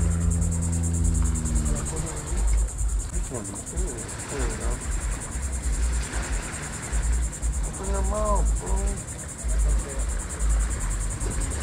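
Insects trilling steadily at a high pitch, with gusts of wind buffeting the microphone in low rumbles. A low steady hum dies away about two seconds in.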